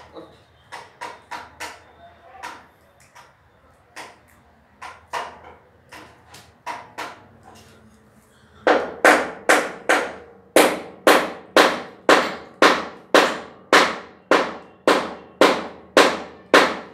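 Repeated hammer blows, sharp knocks that are quieter and irregular at first, then about nine seconds in turn loud and steady at about two strikes a second.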